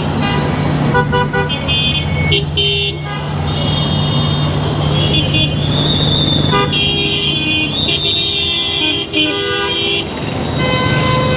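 Heavy city traffic with horns honking almost nonstop: many short and longer toots of different pitches overlap one another. Under them is the steady running of engines.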